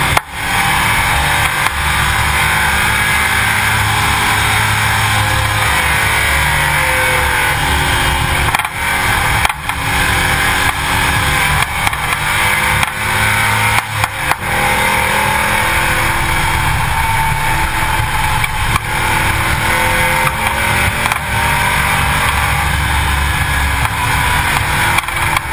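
Vehicle running, heard from a camera mounted down by its wheel: a loud steady rush of wind and road noise with the engine under it, its pitch slowly rising and falling, and occasional brief knocks.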